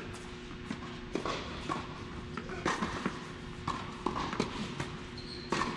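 Irregular knocks and taps on a tennis court: players' footsteps and tennis ball impacts, unevenly spaced, the sharpest about midway and near the end.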